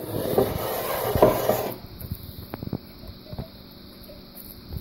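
Glass mason jar of soapy water swirled on a wooden tabletop to spin up a vortex: glass rubbing and knocking on the wood for under two seconds, then a few faint clicks as the jar is handled.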